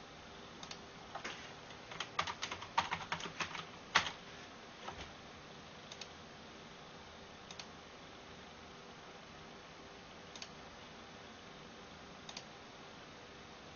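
Computer keyboard keystrokes: a quick run of typing about two seconds in, ending in one louder key press, then single key clicks every second or two.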